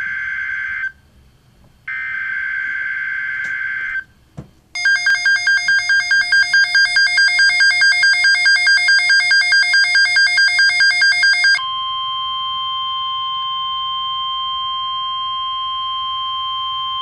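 Emergency Alert System header and alert tones: the end of one shrill digital data burst, a second burst of about two seconds, then a rapidly pulsing electronic beep, about five pulses a second, for some seven seconds. About halfway through, the beep gives way to a steady electronic alert tone.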